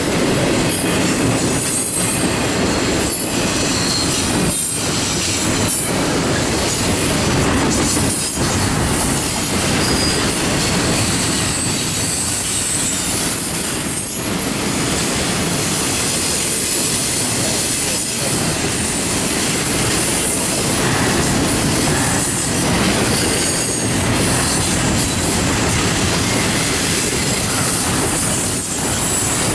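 Double-stack intermodal freight cars rolling past: a steady rumble of steel wheels on rail, with high-pitched wheel squeal and a clack every second or two as trucks cross the rail joints.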